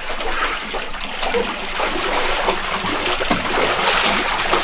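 Water splashing and trickling: a steady rush with small splashes.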